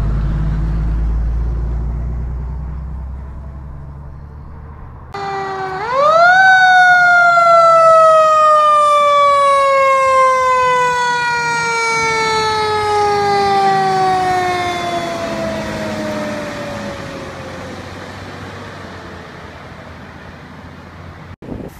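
A fire truck's diesel engine rumbles and fades as it pulls away. Then a Sacramento Fire Department engine's mechanical siren winds up quickly once, about six seconds in, and coasts down slowly in pitch over some fifteen seconds as the engine responds code 3.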